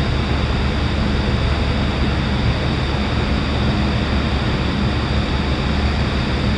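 Steady low drone of a car ferry's diesel engines and machinery, with a broad even hiss over it and no change in pitch or level.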